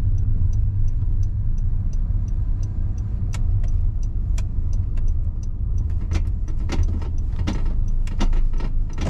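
Car driving: a steady low engine and road rumble, with scattered light clicks and ticks over it.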